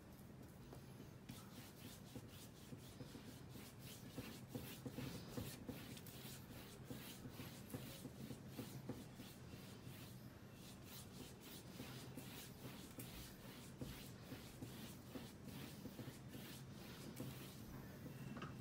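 Faint, scratchy strokes of a paintbrush working paint on a canvas and dabbing on a palette, many in quick succession, over a low steady hum.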